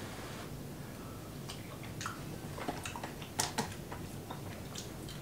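Quiet chewing, then a white plastic spoon scraping and clicking inside a rehydrated-food pouch. The clicks are irregular from about a second and a half in, with a couple of sharper ones around three and a half seconds.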